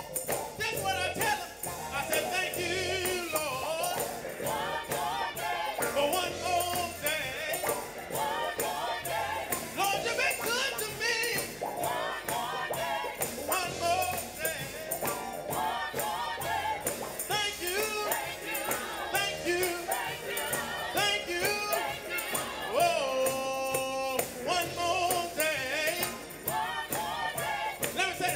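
Gospel praise team singing a worship song, a lead singer with backing voices, over a steady percussion beat, with one long held note near the end.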